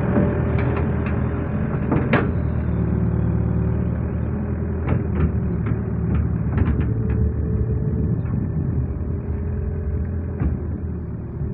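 Excavator diesel engine running steadily under load as the bucket scoops mud from a ditch and dumps it onto a bank, with occasional sharp knocks.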